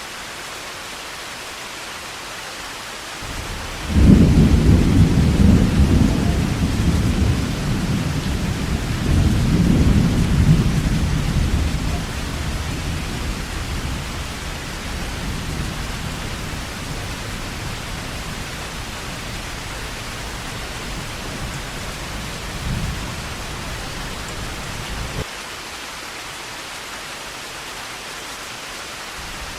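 Heavy rain falling with a steady hiss while a long roll of thunder breaks in sharply about four seconds in, swells again a few seconds later and slowly fades, then stops abruptly near the end.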